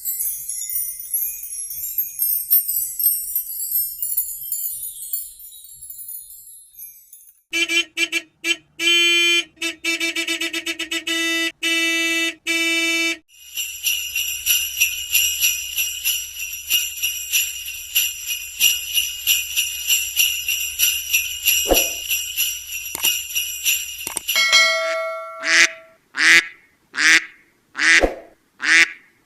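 A run of separate sound effects. First jingling bells that fade out, then a series of short pitched honk-like tones, then a long steady high ringing tone. Near the end come calls repeated about every second, like duck quacks.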